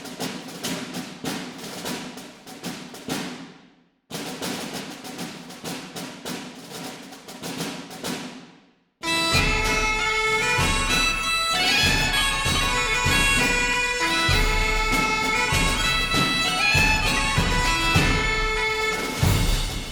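Instrumental background music. Quick struck notes, each fading away, run through two phrases that die out; from about nine seconds in, a louder and fuller passage with held melody notes over a beat takes over.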